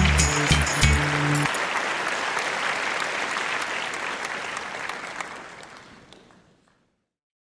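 The song's last bass and percussion notes stop about a second and a half in, leaving a steady hiss that fades out to silence near the end.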